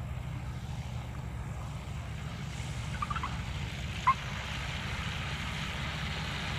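Engine of a weight-shift microlight trike running at low power with a steady low drone as it touches down and rolls along the runway. A rushing hiss grows from about two and a half seconds in. A short, sharp chirp comes about four seconds in, the loudest moment.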